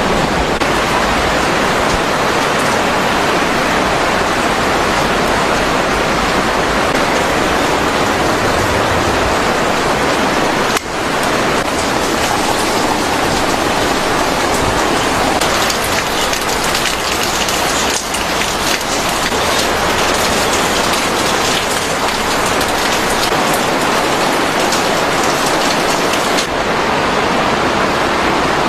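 Steady rain falling, an even hiss with a brief dip about eleven seconds in.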